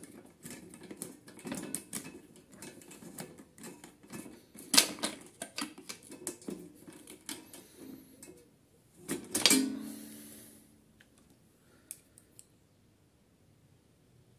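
Small irregular clicks, taps and knocks of metal and plastic parts as a replacement starter motor and its long mounting bolt are fitted onto a Briggs & Stratton InStart mower engine, with louder clunks about five and nine seconds in. It goes quiet for the last few seconds.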